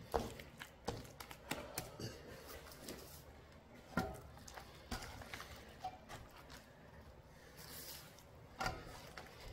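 Bare hand mixing wet kimchi chili paste in a stainless steel bowl and pressing a salted napa cabbage piece into it: soft wet squishing with scattered light clicks and knocks, the sharpest right at the start, about four seconds in and near the end.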